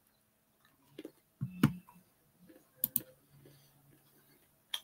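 A few sharp crunches from someone chewing dry nuts, scattered about a second apart, with a short low hum about one and a half seconds in.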